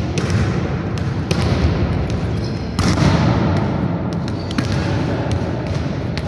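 Volleyballs being hit and bouncing off the hard court, sharp thuds at irregular intervals of about a second that echo in a large sports hall, over a steady low rumble.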